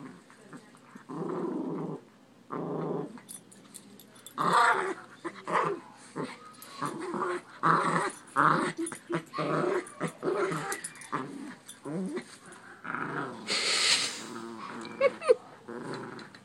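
Two small dogs growling at each other in rough play-fighting, a series of short growls with brief pauses between them, and one louder, harsher burst near the end.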